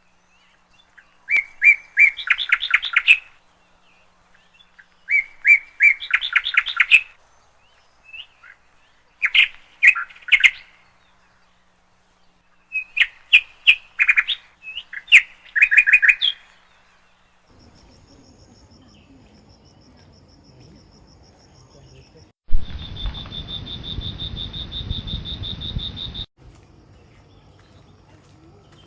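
A songbird singing, four bouts of quick, repeated chirping phrases over the first sixteen seconds. Later a loud buzz with a steady high tone starts and stops abruptly and lasts about four seconds.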